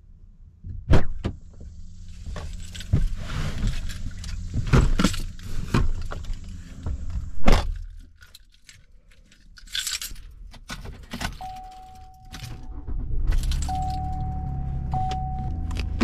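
A driver getting into a pickup truck: sharp knocks, clicks and keys jingling as he climbs in and settles in the seat. About two-thirds of the way in the engine starts and runs with a low rumble, while a dashboard warning chime sounds as a held tone, broken a couple of times.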